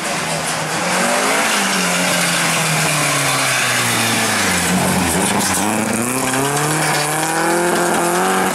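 Talbot Sunbeam rally car's engine passing close by at speed. The engine note falls for the first half, bottoming out around the middle, then climbs again as the car accelerates away.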